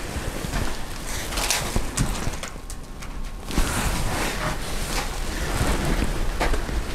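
Rustling handling noise on a handheld camera's microphone, with scattered clicks and knocks from steps on a debris-strewn floor; it drops for about a second near the middle.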